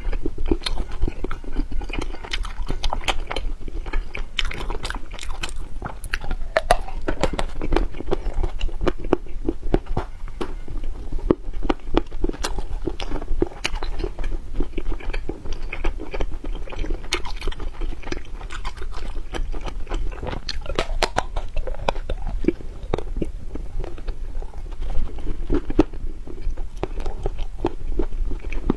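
Close-miked eating of xuemeiniang (snow-skin mochi with cream filling): continuous biting and chewing, full of small wet mouth clicks and smacks, with no pauses.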